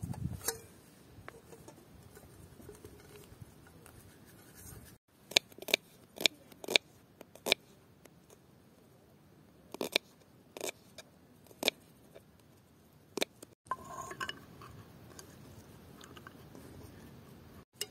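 Kitchen knife slicing a red onion on a round wooden cutting board: the blade knocks sharply and irregularly on the wood, about ten times over several seconds.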